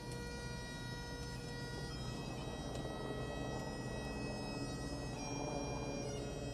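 Bagpipes playing a slow tune in long held notes, moving to a new note about two seconds in and again near the end.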